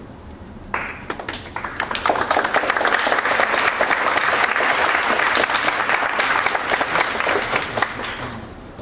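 Audience applauding: clapping starts suddenly about a second in, builds to a full round, and dies away near the end.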